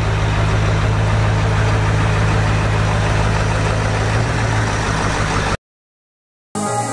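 Ford F-350 Super Duty pickup engine idling steadily with a low, even hum. The sound cuts out about five and a half seconds in, and after a second of silence music begins near the end.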